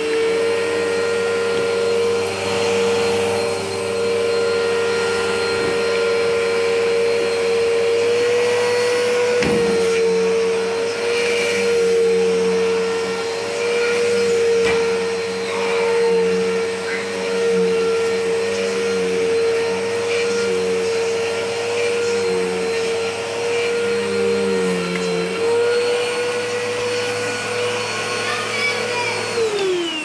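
Bissell Helix upright vacuum cleaner running on carpet with a steady high motor whine that shifts slightly in pitch as it is pushed along. Near the end it is switched off and the whine falls away quickly as the motor spins down.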